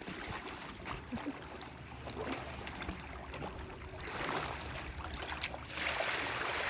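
Kayak paddling: water splashing off the paddle blades in swells every second or two, with a few light clicks.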